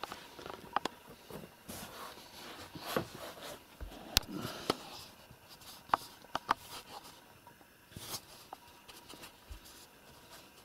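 Scattered scratching, rustling and sharp clicks, close to the microphone, as kittens scrabble among felt boots and the camera is handled.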